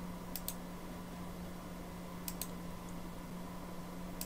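Computer mouse clicking, three pairs of short clicks a couple of seconds apart, as lines are picked in the CAD program. A steady low electrical hum runs underneath.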